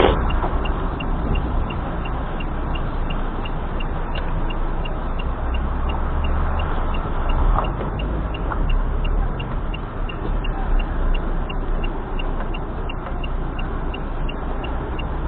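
Steady road and engine noise of a car driving, with a low rumble and a faint, even ticking about three times a second.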